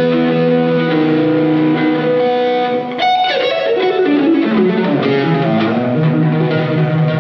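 Solo electric guitar played live through effects, holding long sustained notes. About three seconds in there is a sharply picked note, then a quick run of notes before it settles back into held notes.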